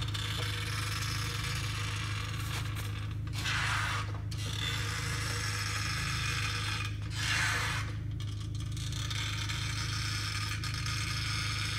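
Hydraulic floor jack being pumped by its handle, its mechanism scraping and clicking as it pulls the anchor chain tight. There are two louder rasping strokes about four seconds apart, over a steady low hum.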